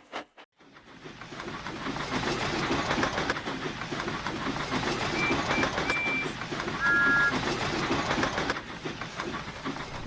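Steam train running along the track, its chuffing and wheel clatter fading in after a brief silence. A few short whistle toots come about five seconds in, followed by a louder two-note whistle blast about seven seconds in.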